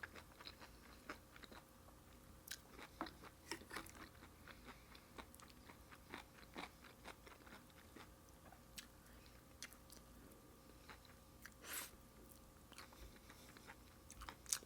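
Faint close-up chewing and crunching of broccoli dipped in cheese dip: scattered crisp crunches and mouth clicks, with one louder crunch about twelve seconds in. A faint steady hum sits underneath.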